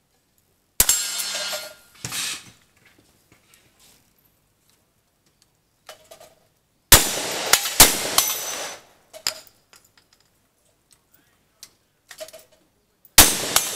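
Loud gunshots from a long gun fired at a cowboy action shooting stage: one about a second in, a second shortly after, a pair about a second apart midway and one more near the end, each with a long ringing tail. Short metallic clinks of the gun being worked and reloaded fall between the shots.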